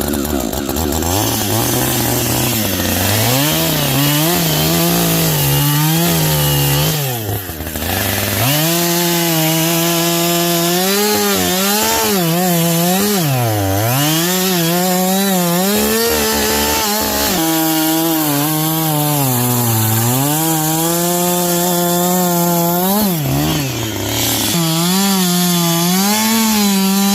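Chainsaw cutting through a stack of sawmill slab offcuts held in a jig. The engine runs loud and its pitch rises and falls again and again as it bogs down in the wood and picks back up, with deeper dips about 7, 13, 20 and 26 seconds in.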